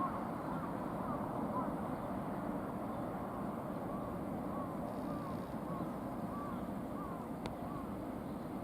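Steady low rumble of a freight train running past on the line, with a bird giving short repeated calls over it.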